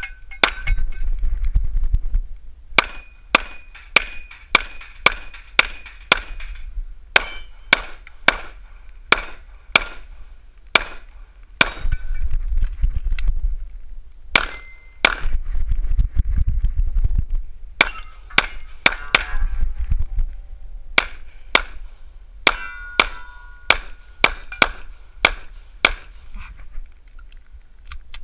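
Semi-automatic pistol fired in rapid strings, dozens of shots in quick pairs and runs with short pauses between them. Some hits are followed by a ringing tone from steel targets.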